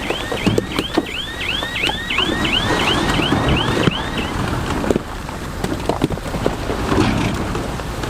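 Crawler bulldozer working over stone: engine and track noise with scattered clanks and knocks, and a rhythmic high squealing about three times a second that stops about four seconds in.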